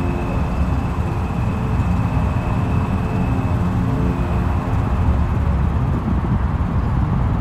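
Steady low engine rumble, a continuous drone standing in for the airship's propeller engines in flight, with a few faint steady hum tones over it.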